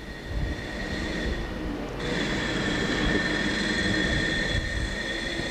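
Steady rumbling noise with a thin, high, steady whine that comes in about two seconds in.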